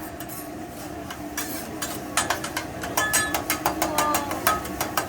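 Metal spatulas clacking and clinking against a hibachi flat-top griddle: a quick, irregular run of sharp clicks from about a second and a half in, some of them ringing briefly.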